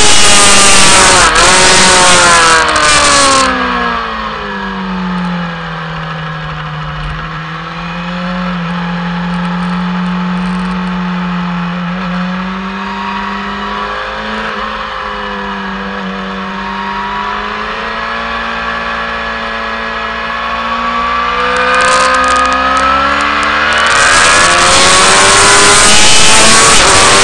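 Racing motorcycle engine heard from an onboard camera. The revs drop sharply over the first few seconds as the bike slows into a long corner, stay lower and fairly steady through the turn, then climb again about 22 seconds in as it drives out. Loud wind rush covers the engine at the start and again near the end.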